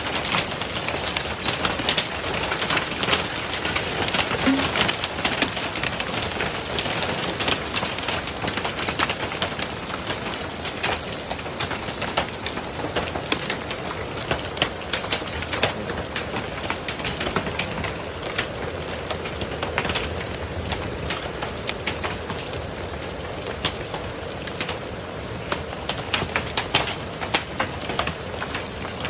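Hail falling steadily through a forest, a dense patter of many small sharp impacts from hailstones striking leaves and the ground.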